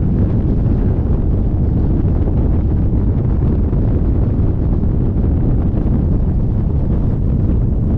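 Wind buffeting a microphone mounted outside a Cessna 177RG Cardinal's fuselage, over the steady low rumble of its engine and propeller as the airplane moves slowly on the ground.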